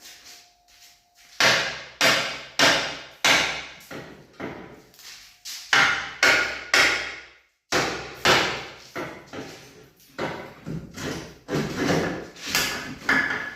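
Hammer blows on steel parts of a VW Touareg's rusted-through axle, struck about twice a second with a brief pause near the middle. The strikes ring slightly, and the axle's control arms are rotted and their bolts snapped.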